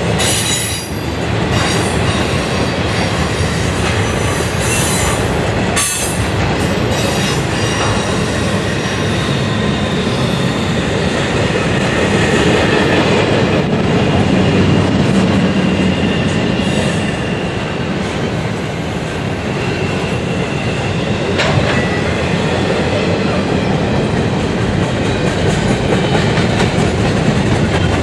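Intermodal freight cars of a CSX train rolling past: a steady rumble of steel wheels on rail, with a few sharp wheel clacks and a faint high wheel squeal at times.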